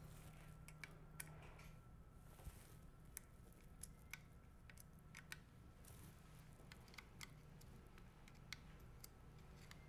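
Near silence: faint, scattered small clicks and ticks from hands handling a rifle scope and the small bubble levels sitting on its turret and ring.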